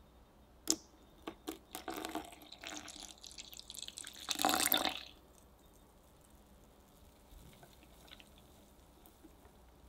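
Milk poured in a thin stream into crepe batter in a glass mixing bowl, the pour loudest about four to five seconds in. A sharp click and a few smaller clicks come before it, and faint whisking follows.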